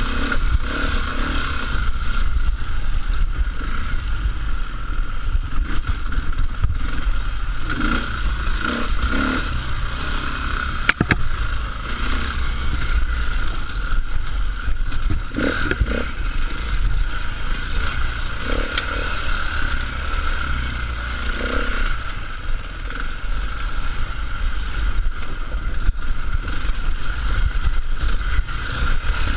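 Enduro dirt bike engine running steadily as the bike rides a rough trail, with rattling, clattering and knocks from the bike.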